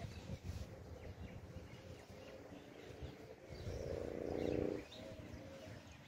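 Quiet outdoor ambience: a low rumble on the microphone with a few faint bird chirps, and, about four seconds in, a brief low droning voice-like sound lasting about a second.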